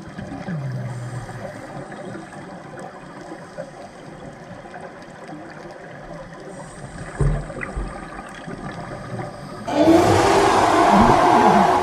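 Underwater sound picked up by a diving camera: a faint low rumble with a short falling tone near the start and a single thump past the middle. About ten seconds in, a much louder rushing noise begins, with wavering low tones sweeping up and down inside it.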